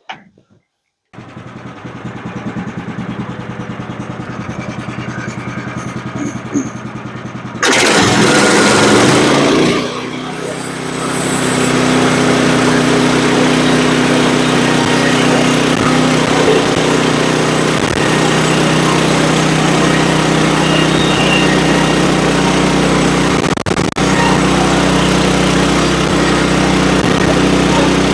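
Small gasoline engine of a manual bandsaw sawmill starting about a second in and idling, then throttled up about eight seconds in and running steadily at high speed.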